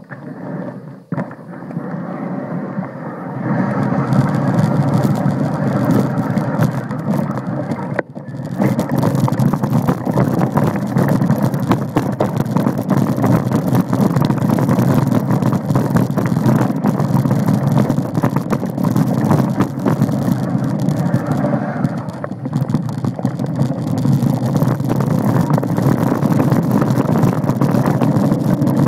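Mountain bike ridden over a rough dirt trail: a loud, steady rushing and rattling noise from the tyres, the bike and air buffeting the microphone. It grows louder about three to four seconds in, as the pace picks up, and drops briefly about eight seconds in.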